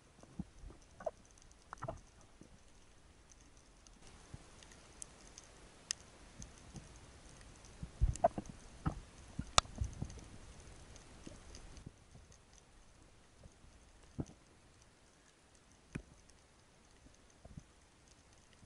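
Underwater ambience heard through a diving camera: sparse sharp clicks and snaps, with a cluster of louder, duller knocks about eight to ten seconds in.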